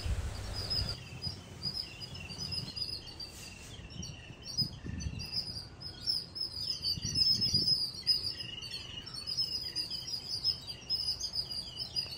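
A group of small birds chirping: many short, high chirps overlapping continuously.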